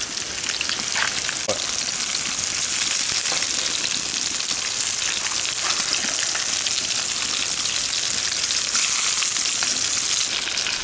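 Fish frying in hot oil: a steady, dense sizzle with scattered crackles and spits.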